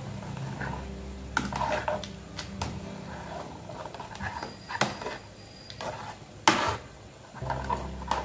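Stainless-steel hand masher pounding boiled potatoes and peas in an aluminium pressure cooker: wet squelches and irregular knocks of metal on the pot, with a couple of sharper clacks.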